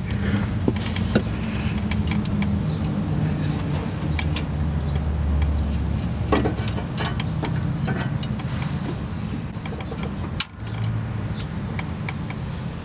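Steady low mechanical hum from an unseen running motor, with scattered light metallic clicks and knocks as a camshaft is worked by hand in an LS V8 engine block.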